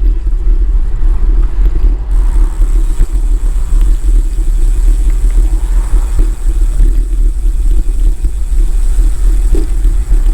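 Steady wind rushing and buffeting on the microphone with low road rumble while riding a road bicycle.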